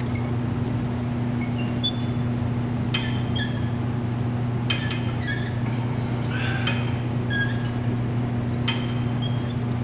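Cable crossover machine clinking as the D-handles and cable fittings knock and rattle through the reps: a series of short, sharp metallic clinks every second or two, over a steady low hum.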